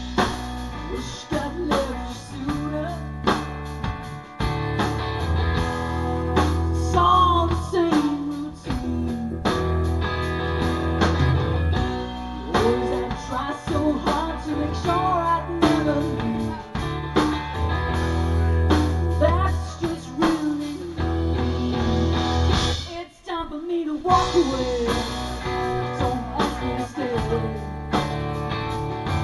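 Live rock band playing: distorted electric guitar, bass guitar and drum kit, with a woman singing over them. The band cuts out for a brief break about three-quarters of the way through, then comes straight back in.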